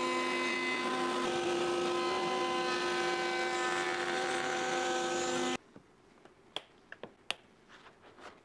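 Table-mounted router spinning a bearing-guided pattern bit as it cuts a hardwood workpiece held in a jig: a steady high whine with cutting noise that stops suddenly a little past halfway. After that come a few light clicks and knocks.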